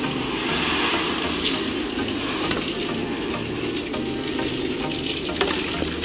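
Dry wheat grains rustling and pouring, a steady hiss.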